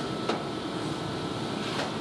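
Steady factory machinery and ventilation hum, with two light clicks: one about a third of a second in and one near the end.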